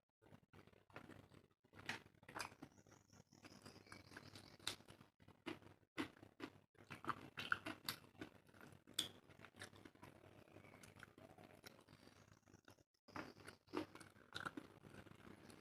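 Close-miked eating sounds: irregular wet chewing and smacking of curry and rice, with occasional crunchy bites.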